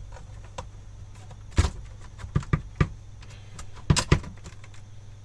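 Sharp plastic and metal clicks and knocks as the cooling fan assembly is unclipped and lifted out of an Asus G20 compact gaming PC's metal chassis. Several separate knocks, the loudest a close pair near the end.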